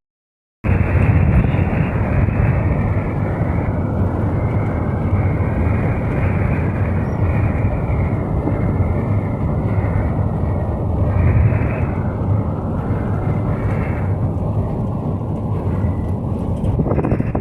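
Steady engine and road rumble of a moving bus, heard from inside, after a half-second dropout at the start.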